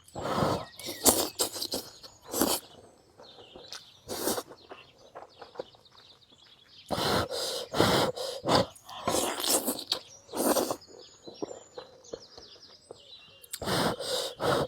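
Close-up eating sounds: bites, chewing and mouth smacks on stir-fried tofu skin and pork, coming in clusters with short pauses between them. Birds chirp faintly in the background.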